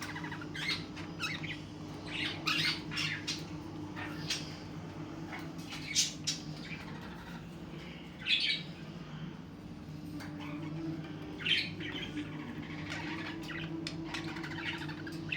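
Pet cockatiels calling: short, sharp squawks and chirps at irregular intervals, over a steady low hum.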